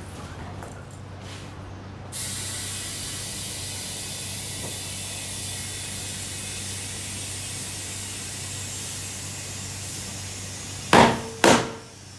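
Compressed air hissing steadily into a motorcycle tyre through its valve, starting abruptly about two seconds in, over a low hum. Near the end come two loud sharp knocks about half a second apart.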